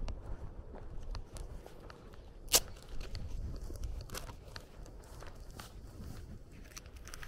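Footsteps of a person walking, over a low irregular rumble, with one sharp click about two and a half seconds in that is the loudest sound.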